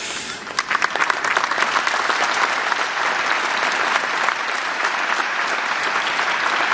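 Audience applauding, the clapping swelling in within the first second and then holding steady.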